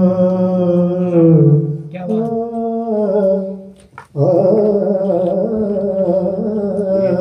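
A man sings a manqabat, a devotional Urdu praise song, into a handheld microphone, holding long drawn-out notes. The voice breaks off briefly about four seconds in, then takes up the held notes again.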